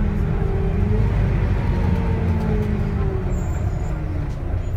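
Volvo D9A diesel engine of a Volvo B9TL double-decker bus running under way, with a steady low drone and a whining tone. The whine rises about a second in, then falls slowly in pitch.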